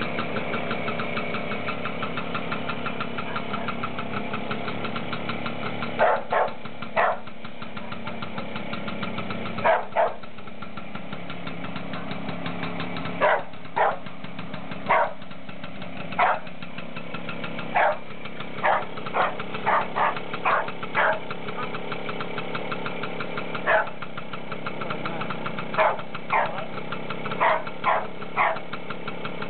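BSA Bantam's single-cylinder two-stroke engine idling steadily. From about six seconds in, a dog barks over it again and again, singly and in quick pairs, each bark louder than the engine.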